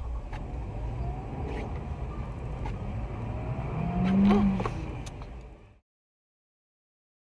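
Car engine and road noise with a few sharp clicks and a brief rising tone about four seconds in. The sound cuts off abruptly about six seconds in, leaving silence.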